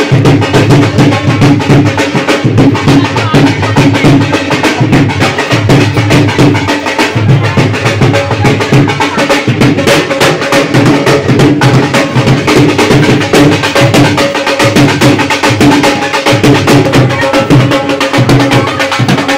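Dhol and tasha drums playing a fast, continuous dance beat, loud throughout.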